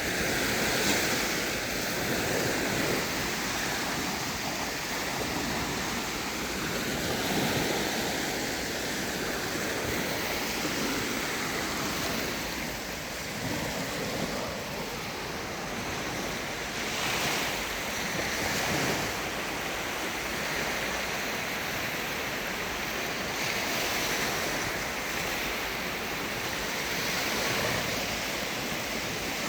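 Black Sea waves washing onto a beach, swelling and easing every few seconds, with some wind on the microphone.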